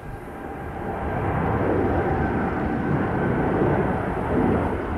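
Boeing 787-8 Dreamliner's GEnx-1B turbofan engines at takeoff thrust as the airliner climbs out: a broad, deep jet rumble that swells about a second in and then holds steady, with a faint steady whine above it.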